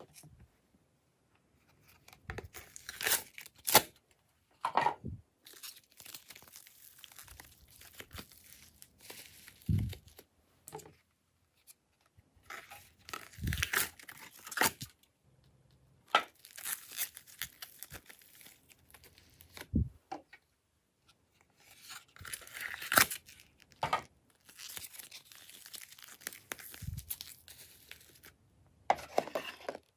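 Thin clear plastic slime trays crinkling and crackling as slime is squeezed and peeled out of them. The sound comes in several bursts of a second or two with quiet gaps between, and a few dull thumps.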